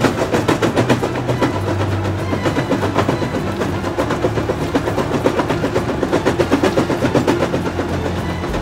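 MB-C50 crusher bucket crushing rock: a fast, even rattle of knocks and cracking, several a second, as the jaw works and stone falls out. Under it the Kaiser X4M walking excavator's engine runs with a steady low hum.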